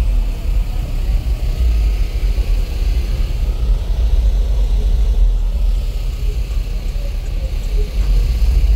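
Four Resilient Sounds 15-inch car-audio subwoofers driven by two Wolfram 4500 amplifiers, playing deep bass at high volume. It comes through as a heavy, continuous low rumble that overwhelms the recording.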